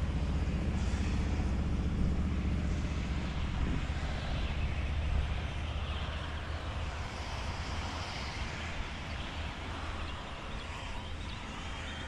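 A low, steady engine drone that slowly fades over the stretch, like a motor passing by and moving away.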